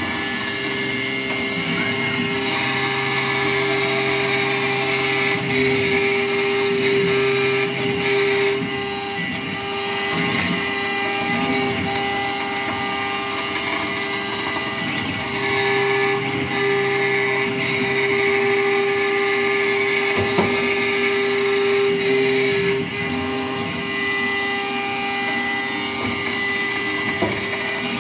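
Langmuir Systems MR-1 gantry CNC mill's spindle at 8,000 rpm driving an end mill through a full-width slot in aluminum: a steady, high machining whine. Its level and tone shift every several seconds as the toolpath changes direction.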